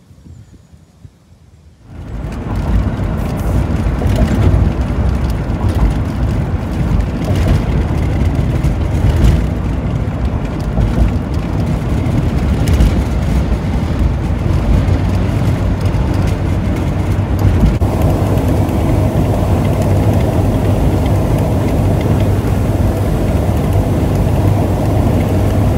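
Van driving at highway speed, heard from inside the cab: a steady drone of engine and tyre noise that comes in suddenly about two seconds in and shifts in character about two-thirds of the way through.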